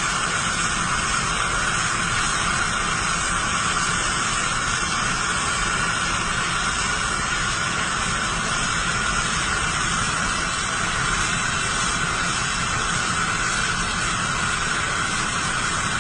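A TIG welding arc hissing steadily, with an even, unbroken hiss and no pauses.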